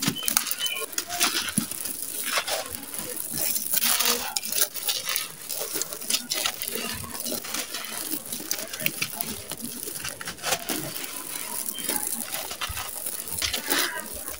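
Dry, gritty sand-cement chunks being crushed and crumbled in bare hands: a continuous dense crunching and crackling, with loose grit pouring from the fist onto the dry floor.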